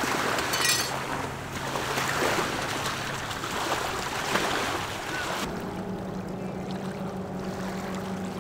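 Ocean surf and wind noise with a brief click a little under a second in. From about two-thirds of the way through the hiss thins, leaving a low steady hum.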